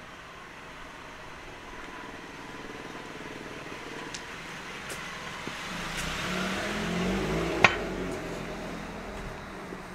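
A car passing by, its engine and road noise building to a peak about seven seconds in and then fading away. A single sharp click sounds at the loudest point.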